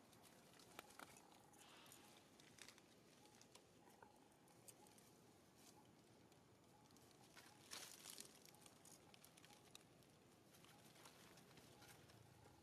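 Faint crackling and rustling of dry leaf litter as monkeys move over it, scattered small clicks with one louder rustle about eight seconds in.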